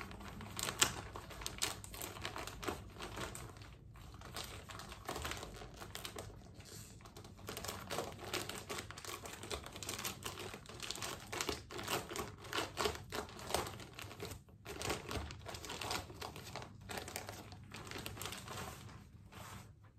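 Plastic mailer bag crinkling and crackling as it is handled and pulled open by hand, in a continuous, irregular run of crackles.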